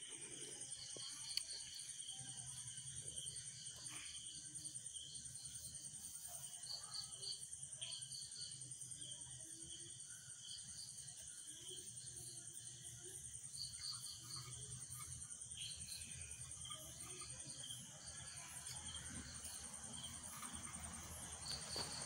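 Crickets and other night insects chirping: a steady high trill, with shorter groups of chirps coming and going over it.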